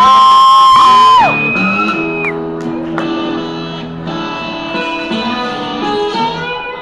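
Music with guitar, opening with a loud held high note that breaks off after about a second, then continuing more quietly with sustained guitar chords.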